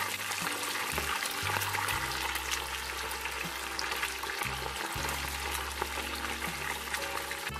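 Chicken wings deep-frying in hot oil at about 180°C: a steady, dense crackle and sizzle of vigorously bubbling oil.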